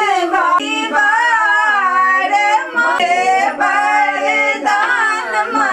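Women singing together without instruments, in long held notes that slide up and down in pitch.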